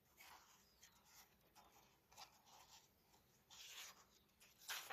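Faint rustling and soft scraping of paper, a few separate strokes with a slightly louder one near the end: the pages of a picture book being handled and turned.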